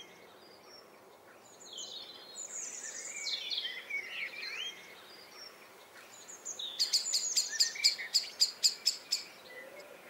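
Faint warbling birdsong, then from about seven seconds in a blackbird's sharp, repeated alarm calls, about four a second: the anxious chinking of a blackbird that has a nest nearby.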